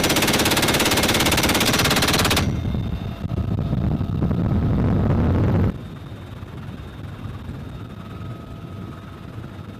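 A long burst of rapid machine-gun fire, about two and a half seconds, from a door-mounted gun on a UH-1Y Venom helicopter. Then the helicopter's rotor and engine noise, loud through the open door for a few seconds and then quieter and steady from about six seconds in.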